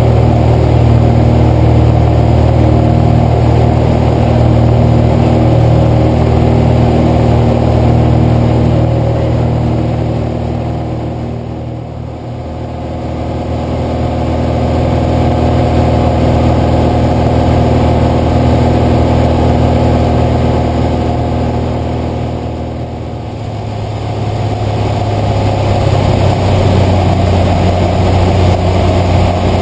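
Cessna 172's piston engine and propeller droning steadily in cruise, heard from inside the cockpit. The sound dips twice and comes back, and the engine's pitch is slightly different after each dip.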